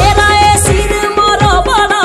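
Himachali Nati folk music: a quick, steady drum beat under a held melody line that bends up and down in pitch.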